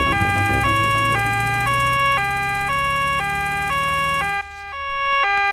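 Two-tone cartoon siren of the doctor's car, switching between a high and a low note about every half second over a low hum that slowly rises in pitch. About four and a half seconds in it drops away briefly, then swells back up.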